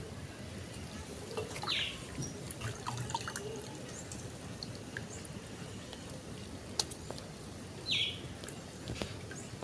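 Water dripping and splashing in small, scattered drops, typical of mushrooms being washed by hand. A bird chirps briefly twice.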